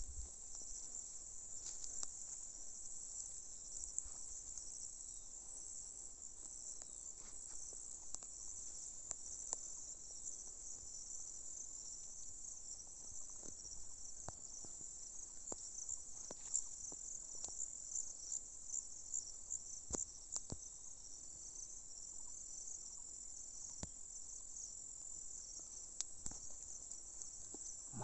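Steady high-pitched chorus of insects, with scattered light crackles of bare feet moving over dry straw and grass.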